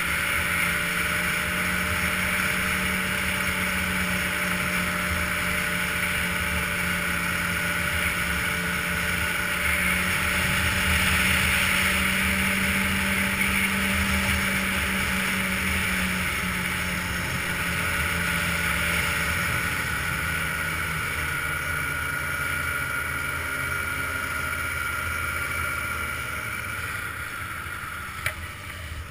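Ski-Doo snowmobile engine running at a steady cruising speed, a little louder and higher from about ten to fourteen seconds in, then easing off. Near the end the engine slows and quietens, with one short click just before it stops.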